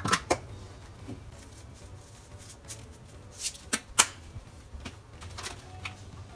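Sharp clicks and taps of kitchen items (bottles, chopsticks, a plastic bento box) being handled on a granite countertop: two at the start, a cluster about three and a half to four seconds in, the loudest, and one more near the end.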